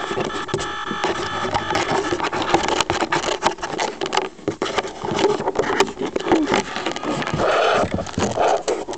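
Irregular clicks, knocks and rustling close to the microphone of a small RC plane's onboard camera, with the grounded plane being handled and picked up near the end.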